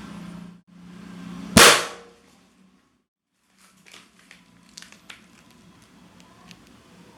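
A balloon bursting with one loud bang about one and a half seconds in. Later come scattered light clicks and crackles.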